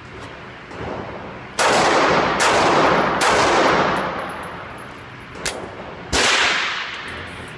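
Glock 26 9mm pistol fired in an indoor range: three shots about 0.8 s apart, then a fainter crack and a fourth shot about three seconds later. Each shot rings on in the enclosed booth.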